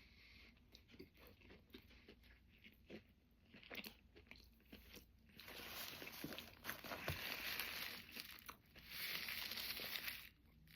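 Close-up chewing of a bite of crispy chicken sandwich, with soft scattered crunches. About five seconds in, two longer stretches of louder rustling hiss.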